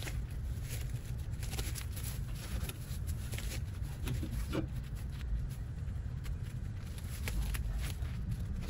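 Rustling and crackling of dry leaves and vines as weeds are pulled by hand and trodden underfoot: a run of soft, irregular clicks over a low steady rumble.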